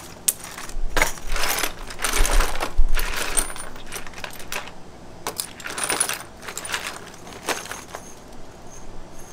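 Metal fuel-line fittings clinking and rattling in a plastic storage bin as hands rummage through them, loudest about two to three seconds in and sparser after.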